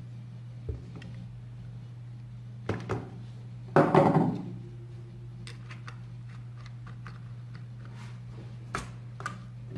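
Keyboard parts being handled and fitted together: scattered knocks and clicks, with a loud thunk about four seconds in and a run of small clicks later, over a steady low hum.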